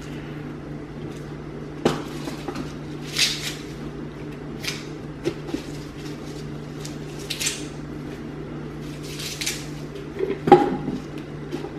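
Crisp rustling and crackling of curly kale leaves being stripped from their stems and pressed into plastic blender cups, in short bursts every second or two over a steady low hum. A sharper knock about ten and a half seconds in is the loudest sound.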